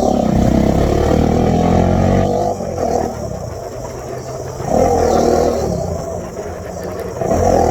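Bajaj Dominar 400 UG's single-cylinder engine being revved: held up for about two seconds, dropping back toward idle, then blipped again about five seconds in and once more near the end.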